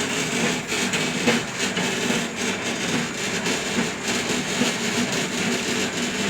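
Motorised soy milk filtering machine running steadily: a continuous mechanical hum with a rough, fluttering texture.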